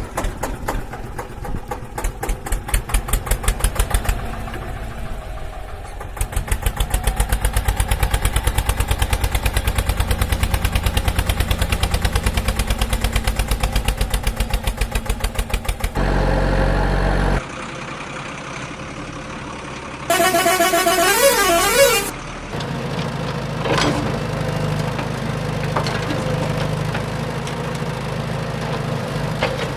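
A vehicle engine chugging in rapid even pulses. About halfway through comes a short, loud, low horn blast, then a few seconds later a wavering, warbling horn. After that the engine runs on steadily.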